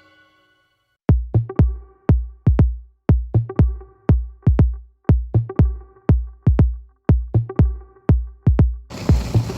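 Electronic background music: a drum-machine beat of deep, evenly repeating kick hits over a held synth tone. It starts about a second in, and a hissing noise layer joins near the end.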